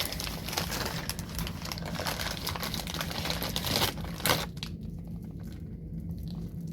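Crinkling and rustling of a blind bag's packaging being handled and torn open, with a sharp louder rustle about four seconds in, after which it goes quieter. A steady low hum runs underneath.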